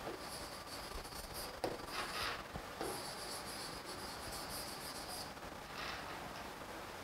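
Chalk writing on a blackboard: several runs of scratching strokes with a high-pitched squeaky edge, separated by short gaps.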